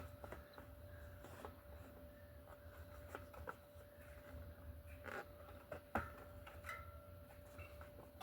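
Faint rubbing and scattered light clicks of a bicycle tire being worked onto its rim by hand, over a faint steady tone.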